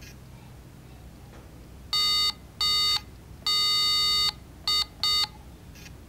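Car-horn sound from the small trunk-mounted speaker of an Arduino-controlled 3D-printed 1:32 RC car: five honks at one steady pitch, two short, then one long, then two short, the fourth very brief.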